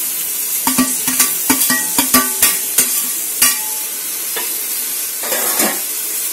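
Steel ladle stirring chicken and masala in a metal cooking pot, clinking against the pot about a dozen times in the first three and a half seconds and scraping once near the end, over a steady sizzle of the masala frying in the oil.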